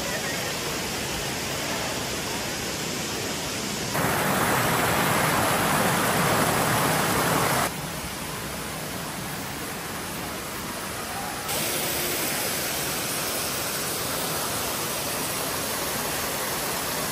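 Steady rushing water of a cascading waterfall and river, an even hiss with no tone in it. It comes in cut segments: it jumps louder about four seconds in, drops back just before eight seconds, and rises a little again around eleven seconds.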